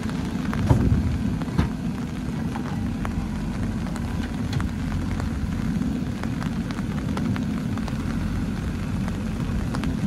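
JCB 3DX backhoe loader's diesel engine running steadily under load as the backhoe arm and bucket work, with a couple of sharp knocks in the first two seconds.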